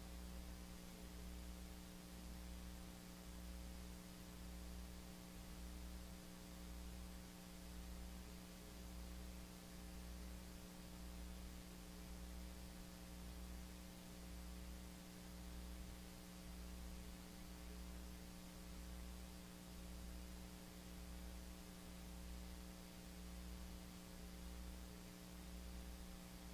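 Faint steady electrical hum with a slow low throb that swells and fades a little under once a second; no speech.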